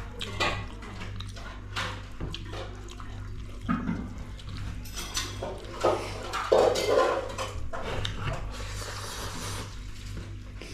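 Close-up eating sounds from a meal of rice with thin mustard-greens soup eaten by hand: wet squelches, slurps and chewing with small clicks against a plate, over a steady low hum.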